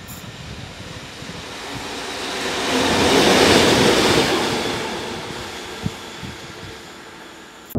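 A locomotive running light (without wagons) passing by: its rumble and wheel noise swell to a peak about three to four seconds in, then fade away.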